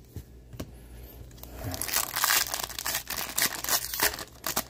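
Foil wrapper of an Upper Deck hockey card pack being torn open and crinkled by hand. The crackling starts about two seconds in and is loudest then.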